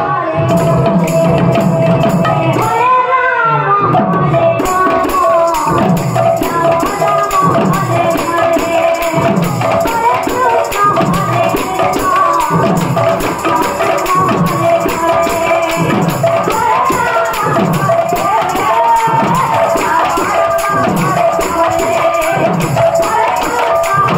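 Live kirtan music, loud: a woman singing through a microphone and PA over percussion keeping a steady beat, with a steady held note underneath.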